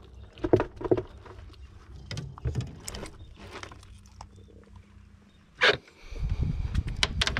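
Handling noise on a fiberglass boat deck while a landed redfish is dealt with: scattered light knocks and clatters, one sharper knock about two-thirds of the way in, then a low rumble as the fish is lifted. A faint steady low hum runs underneath.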